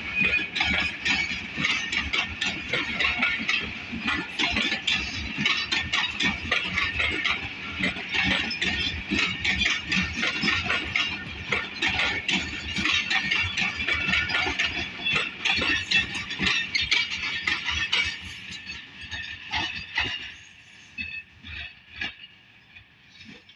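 Pakistan Railways passenger coaches rolling past on the track: a dense, rapid run of wheel clicks and clanks over the rails with a steady high hiss. It fades away over the last few seconds as the final coach draws off.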